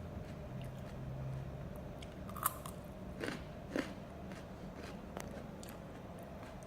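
A person biting and chewing raw salad leaves, with a few crisp crunches scattered through, the loudest about two and a half seconds in.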